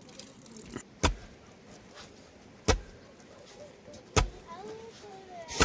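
Four sharp knocks or blows, evenly spaced about a second and a half apart.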